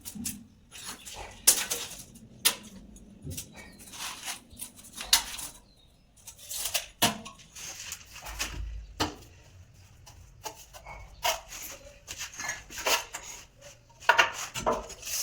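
Masonry tools scraping and knocking on wet concrete mix in slab formwork: irregular sharp clicks and scrapes with short pauses between them.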